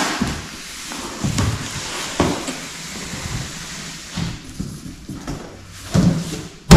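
Corrugated cardboard shipping box being slid up and lifted off an inner box, scraping and rustling with a few light knocks. Near the end comes a sudden loud thud as the empty box is thrown aside and lands.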